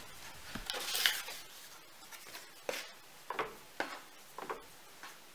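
Hands working soft bread dough on a floured wooden board: a brushing rub about a second in, then several short, soft pats and taps as the dough is set down and smoothed.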